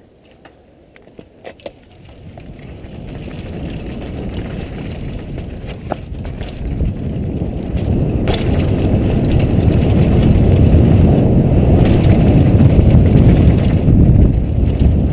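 Downhill mountain bike ride heard from a helmet camera: a few knocks from the bike in the first two seconds, then low wind rush on the microphone and tyre rumble on the dirt trail that swell steadily and get loud as the bike picks up speed.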